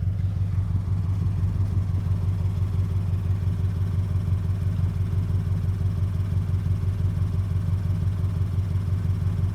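An engine idling steadily: a low, even running hum with a fast, regular pulse.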